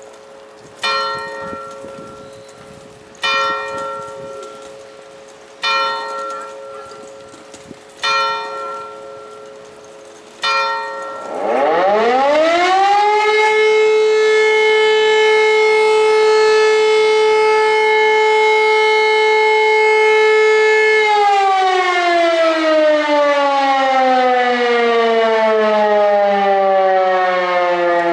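A bell strikes five times, about every two and a half seconds. Then an E57 electromechanical siren starts up, its pitch rising over about two seconds to a steady tone that holds for about ten seconds: the single-tone 'Probe' test signal. Then it winds down, the pitch falling slowly.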